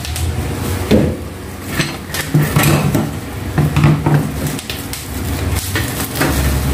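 Irregular knocks and clatter of a dish rack being unpacked: its metal parts in plastic wrap are handled and set against the table, and the cardboard box is moved.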